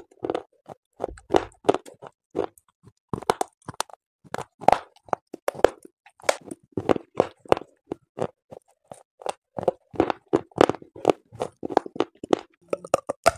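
A person biting off and chewing pieces of a fired clay pot. Dense, irregular crisp crunches follow one another closely.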